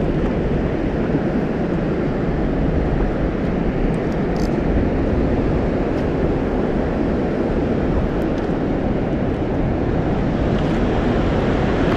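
Steady low rumble of wind on the microphone at sea, with the wash of the water and a few faint clicks.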